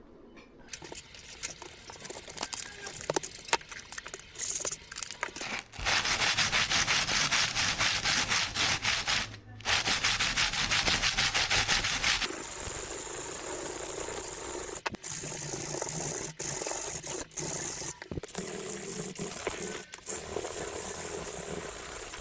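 A steel kitchen knife blade rubbed back and forth on coarse 80-grit sandpaper to thin it: a loud, rapid scratching of many quick strokes. For the first six seconds there are only quieter handling sounds and a few clicks before the sanding begins.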